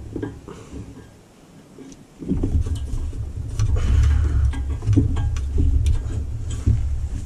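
Gusty low wind rumble buffeting the microphone, dropping away for about a second near the start, with a few light clicks from hands fitting a screw under a lawn tractor.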